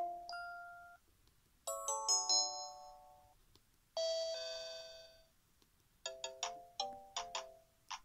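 Samsung SGH-T400's built-in polyphonic message alert tones previewing one after another, each a short synthesized jingle: a chord fading out, then a stepped chime, then a bright sustained chord that starts abruptly about four seconds in, then a quick run of short notes near the end, with brief gaps of quiet between them.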